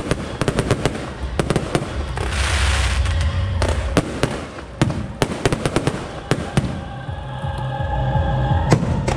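Aerial fireworks going off in quick succession: many sharp bangs and cracks over a low rumble, with a hissing rush about two seconds in lasting about a second.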